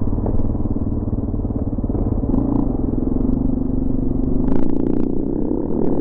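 Motorcycle engine heard from an onboard camera, running steadily at high revs under way, with a short burst of hiss about four and a half seconds in.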